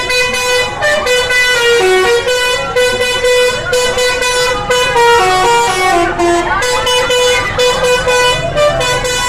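Basuri 'telolet' musical bus horn playing a tune: a loud, bright horn tone held mostly on one note with short breaks, stepping down to a few lower notes and back several times.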